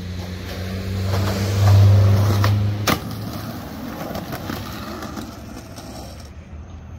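Skateboard rolling on a concrete sidewalk, wheels rumbling, with a low hum under it for the first three seconds. A single sharp clack of the board comes near three seconds in, then the rolling goes on and fades.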